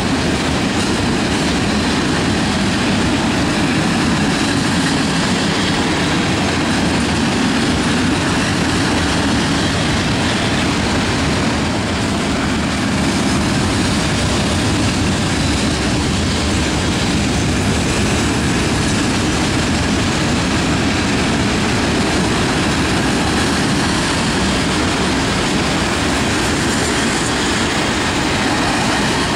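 Freight cars of a mixed manifest train rolling past, steel wheels clattering on the rails in a loud, steady stream.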